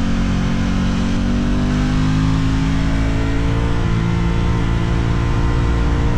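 Aprilia RS660's parallel-twin engine under acceleration, heard from onboard the bike, pulling through a gear with its pitch rising slowly and steadily.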